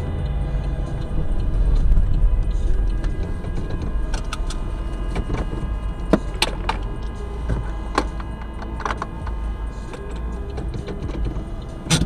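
Inside a stopped car: the engine idling with a low steady rumble, and about ten scattered sharp clicks and knocks from about four seconds in, the loudest about six and a half seconds in and right at the end.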